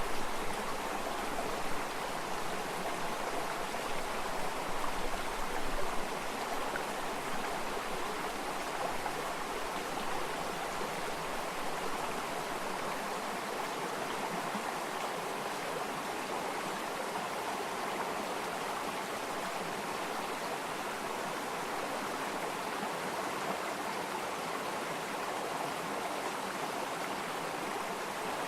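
Water of a stream flowing steadily, an even rushing sound, slightly louder and more uneven in the first few seconds.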